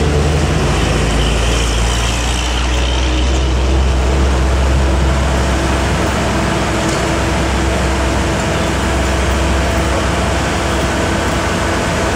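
Heavy diesel engines running with a loud, steady low rumble as a truck drives past. About three seconds in, the sound settles into a steady engine hum with a faint tone over it.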